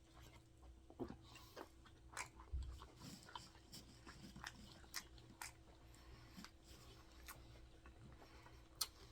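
Close-miked chewing of a cheeseburger: quiet wet mouth clicks and smacks, scattered and irregular, with a sharper click near the end.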